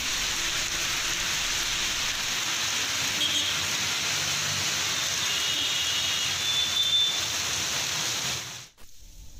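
Heavy rain pouring down on a street, a steady even hiss that cuts off suddenly about eight and a half seconds in.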